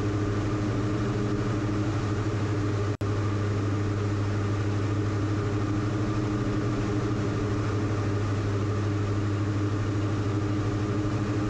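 The twin Austro AE300 turbodiesel engines and propellers of a 2020 Diamond DA42 VI in cruise flight, heard inside the cabin as a steady, even drone. The sound cuts out for a split second about three seconds in.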